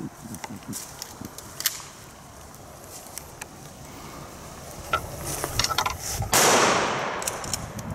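A single shotgun shot about six seconds in, loud and sudden, echoing off through the woods for about a second and a half. Before it there are scattered light crackles, like steps or movement in dry leaves.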